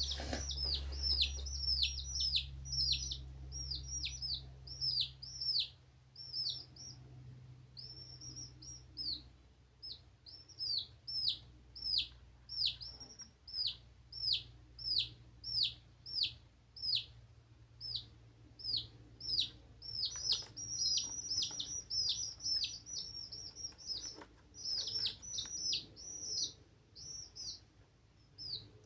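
Domestic chicks peeping: a continuous run of short, high peeps, each falling in pitch, a few every second.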